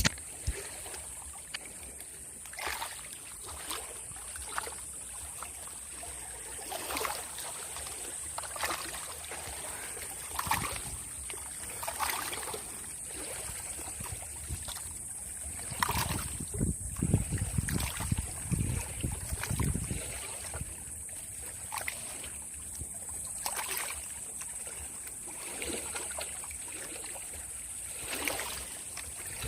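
Small waves lapping and splashing irregularly at the lake's edge, over a steady high-pitched drone. A low rumble swells briefly about two-thirds of the way through.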